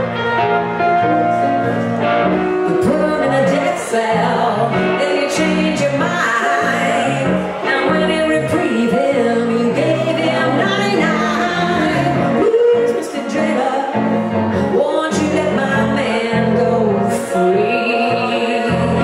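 Live blues song played by a guitar-and-keyboard duo: a hollow-body electric guitar and a stage keyboard accompany a sung lead line throughout.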